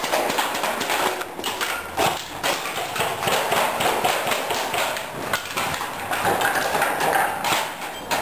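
Airsoft rifles firing: a rapid, irregular series of sharp clicks and knocks.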